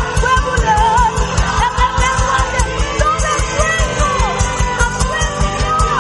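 Live church praise band playing an upbeat worship song with a fast, steady drum beat, with voices singing over it.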